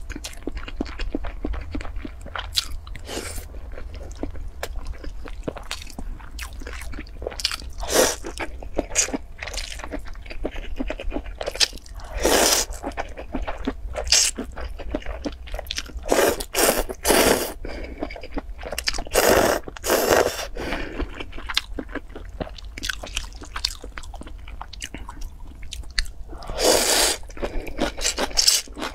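A person chewing boiled egg and noodles with wet mouth clicks, broken by several long, loud slurps of noodles in the second half.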